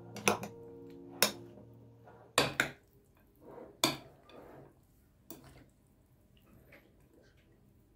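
A metal spoon stirring a mayonnaise-dressed salad in a glass bowl: six sharp clinks of spoon on glass, with soft wet squishing of the salad between them. Background music stops about two and a half seconds in, and the stirring grows fainter toward the end.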